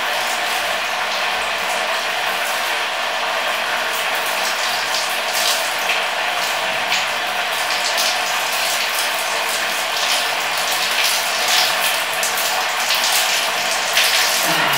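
Water spraying steadily from a handheld shower hose onto a dog's fur and the tiled shower floor: a steady hiss with fine spattering.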